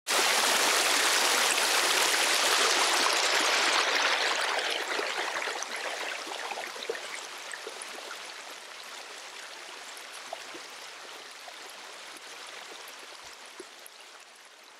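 Rushing water of a river running over rapids: a steady rush, loud for about four seconds, then gradually fading out.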